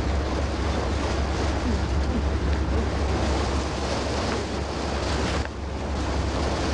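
Steady rush of wind and sea on the bow of a schooner under way, with a deep wind rumble on the microphone; it dips briefly about five and a half seconds in.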